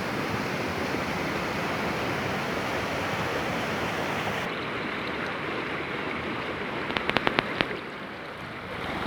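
Waterfall rushing steadily, with a quick run of sharp clicks about seven seconds in; the rushing loses some of its hiss about halfway through and dips briefly near the end.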